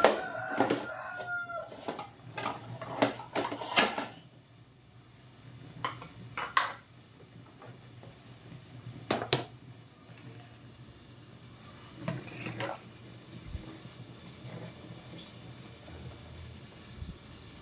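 A rooster crows once near the start. Then come several separate knocks and clatters of a plastic ladle and plastic containers being set down on a tiled kitchen counter.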